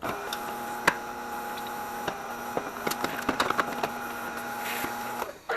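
Tire changer running as a tire is mounted onto a wheel: a steady mechanical hum with many clicks and creaks from the bead working over the rim. It starts abruptly and cuts off just before the end.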